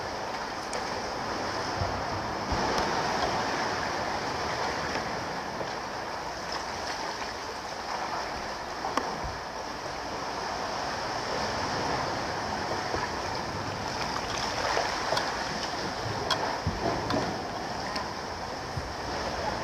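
Sea water washing and sloshing around a canoe: a steady rushing of surf and swell, with scattered small sharp clicks and splashes.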